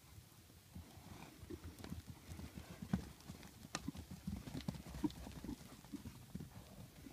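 Hooves of several Morgan and Arabian horses cantering on dry, packed paddock ground, an irregular run of thuds and knocks that starts about a second in as they come close.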